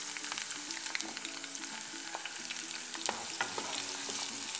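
Chopped onion and garlic sizzling in hot olive oil in a saucepan, a steady hiss with small crackles and pops. Near the end a wooden spoon stirs through the pan.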